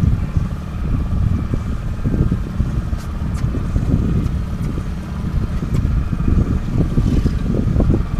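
A fishing boat's motor running steadily, with wind gusting and buffeting the microphone.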